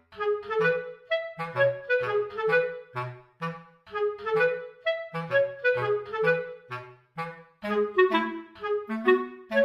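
Background music: a bouncy, playful tune of short clarinet-like woodwind notes over a plucked-sounding bass line.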